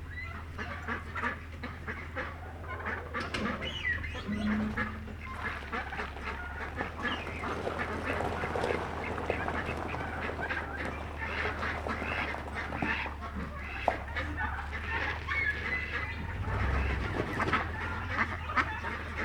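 A flock of domestic poultry calling, a busy run of quacking and honking calls, over a steady low hum.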